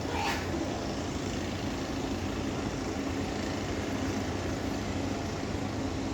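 Steady low mechanical hum of a running engine or machine, with a brief hissing rattle just after the start.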